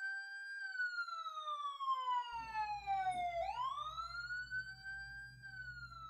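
Wailing police-style siren sound effect: one tone that sweeps slowly down, climbs quickly back up and starts to fall again, a full rise and fall taking about five seconds.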